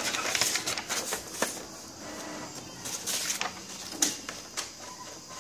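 A sheet of printer paper rustling as it is handled and turned, in irregular crinkles with a few sharp clicks, the loudest about four seconds in.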